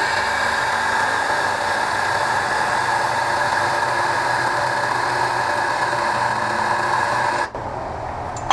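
Angle grinder with a thin cut-off wheel running steadily as it cuts through the steel case of a fluorescent light ballast, stopping abruptly near the end.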